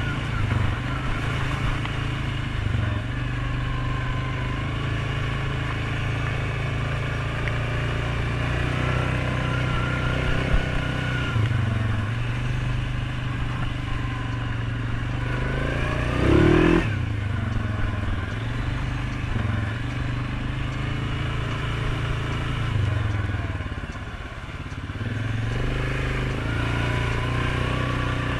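Suzuki KingQuad 750 ATV's single-cylinder engine running under way, its revs rising and falling. A brief louder burst comes about sixteen seconds in, and the engine eases off for a moment around twenty-four seconds.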